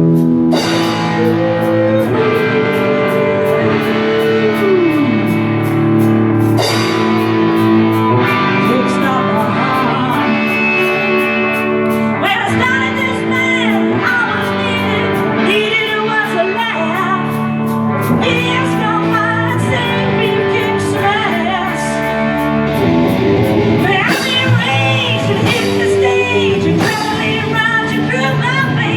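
Rock band playing: electric guitar over a steady drum beat, with a singing voice.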